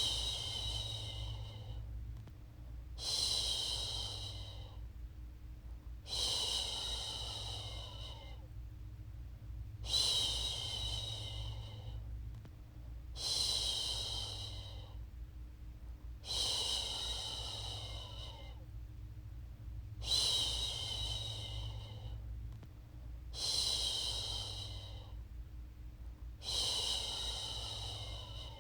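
A woman's voice shushing, a long breathy "shhh" repeated about every three seconds, each one fading out over a second or so, the soothing shush used to settle a baby to sleep. A steady low hum sits underneath.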